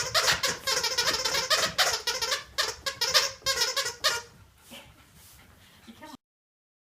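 Squeaky dog toy squeaked over and over by a terrier chewing on it: a fast run of short, high squeaks that thins out about four seconds in.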